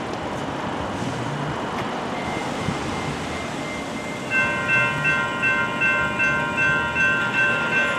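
Steady street and traffic noise, then about halfway in the grade crossing's electronic warning bells start ringing in a steady, evenly repeating ding that signals the crossing has activated for an approaching train.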